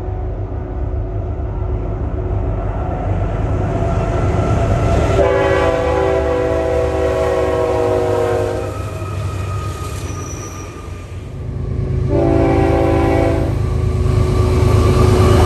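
Diesel freight locomotive sounding its multi-note horn, one long blast and then a shorter one, over the steady rumble of the approaching train. Near the end the rumble grows louder.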